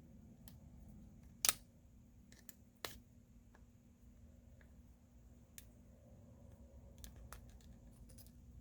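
Faint clicks and taps of small tools and parts as a smartphone is taken apart by hand, with two sharper clicks in the first three seconds, over a low steady hum.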